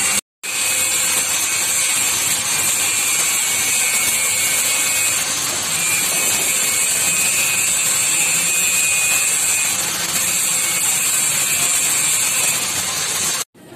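Brother BH-814 industrial buttonhole sewing machine running, stitching a buttonhole in denim: a steady mechanical clatter of needle bar and feed.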